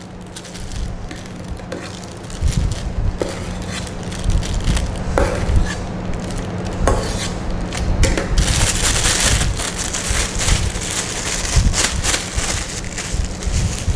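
Plastic piping bag being handled and filled with whipped cream: crinkling and rustling of the bag with scattered clicks and knocks, the crinkling getting louder about eight seconds in. A steady low hum runs underneath.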